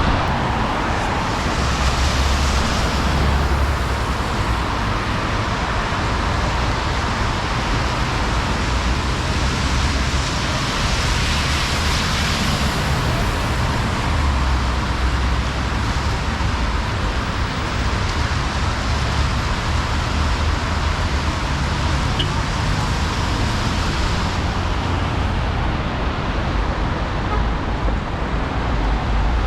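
Steady street traffic noise, with louder swells a couple of seconds in and again around the middle as vehicles pass.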